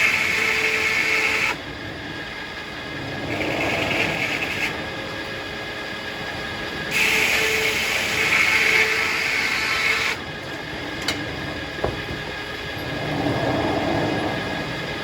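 Circular sawmill running with a steady whine, its blade cutting through hackberry in three louder, harsher stretches: at the start, about three seconds in, and about seven seconds in. A couple of short knocks follow just after the last cut.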